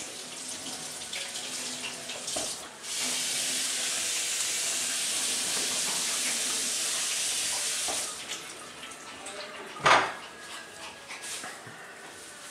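Kitchen tap running into a sink for about five seconds, starting and stopping abruptly, followed about two seconds later by one sharp knock.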